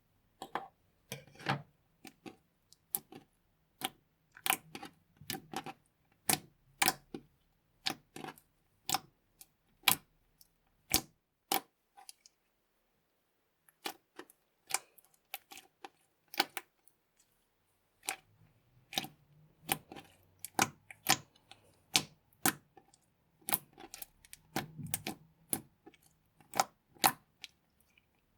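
Slime being squeezed and folded by hand, giving sharp, irregular clicks and pops of trapped air, about one or two a second, with a short pause about halfway through.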